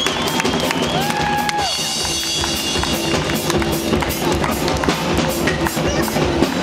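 Rockabilly band playing live, with a steady drum-kit beat under sustained instrument notes.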